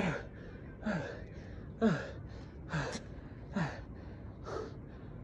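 A man's heavy breathing under exertion during push-ups: a short, forceful exhaled gasp with a voice that falls in pitch, about once a second in time with the reps, getting weaker near the end.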